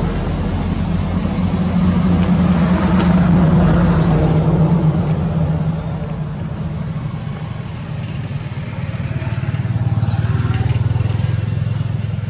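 A motor vehicle engine running, a low steady hum whose pitch drifts slowly; it grows louder about two seconds in and again near the end.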